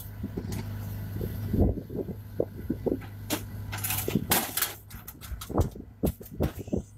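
Metallic clanks, clinks and knocks from a crew handling the breech and loading gear of a Bofors 155 mm howitzer. They come irregularly, a sharp ringing clink about four seconds in, over a steady low hum.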